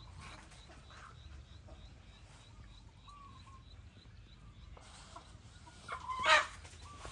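Rooster squawking once, loud and brief, about six seconds in, with a couple of shorter calls just before it.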